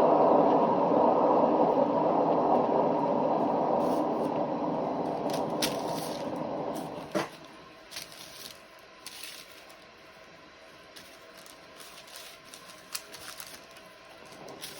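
Paint-pouring spinner whirring as it turns the wet canvas, gradually winding down and stopping about seven seconds in. Faint clicks and scrapes of the canvas being handled follow.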